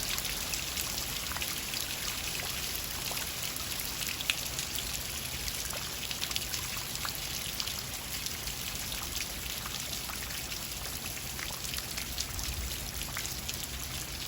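Rain falling steadily, with many individual drops ticking, one sharper than the rest about four seconds in.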